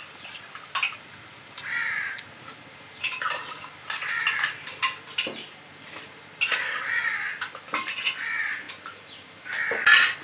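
Crows cawing again and again, a harsh call every second or two, the loudest near the end. Between the calls a metal ladle clinks and scrapes against steel cooking pots.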